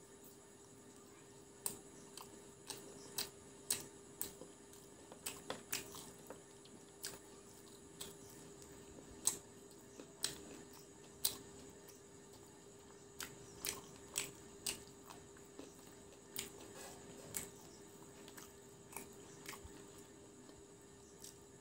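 Close-up chewing of crispy fried chicken pakora: irregular sharp crunches and mouth clicks, about one or two a second, over a faint steady hum.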